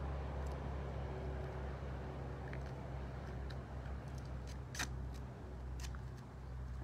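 A steady low outdoor rumble with a scatter of small clicks and taps as gear is handled. The sharpest click comes a little before five seconds in.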